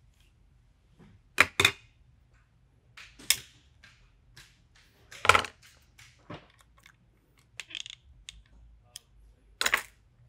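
Sharp metallic clicks and knocks from a hex key and the metal parts of an FX Maverick air rifle being handled while its barrel is taken off. There are several separate knocks, a close pair just under two seconds in, and the loudest about five seconds in.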